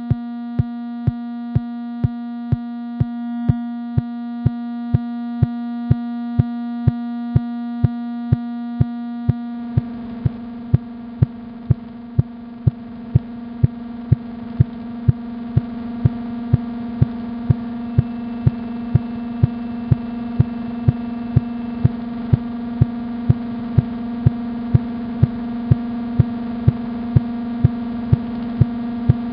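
Background music: a steady synthesizer drone with a regular low pulse, a little under two beats a second. About ten seconds in, a hiss joins and the pulse quickens slightly.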